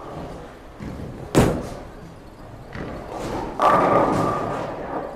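A sharp, loud thud about one and a half seconds in. Then, a little over three and a half seconds in, a 900 Global Reality bowling ball lands on the lane and rolls away with a rumble and a steady ringing tone that fade out.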